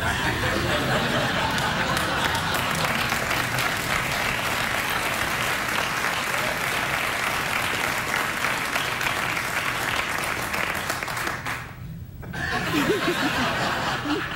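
Studio audience applauding steadily; the clapping stops suddenly about eleven and a half seconds in, followed by a few short bursts of laughter.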